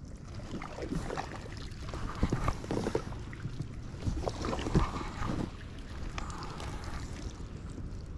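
Kayak paddle strokes splashing and swishing through thick marsh weed, in two bouts of strokes a few seconds apart.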